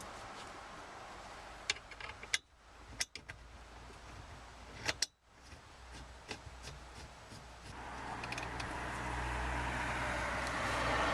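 Sharp metallic clicks and clinks of hand tools on the seat bolts as they are tightened, a few loud ones in the first half and lighter scattered ones later, over a steady rushing background that grows louder in the last few seconds.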